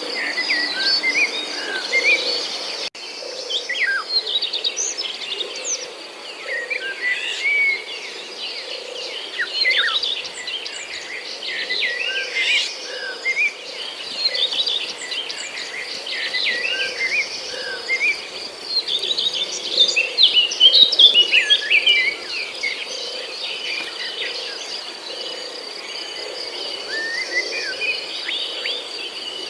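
Many birds chirping and twittering over a steady high-pitched drone of insects such as crickets, with a soft low call pulsing about once a second underneath.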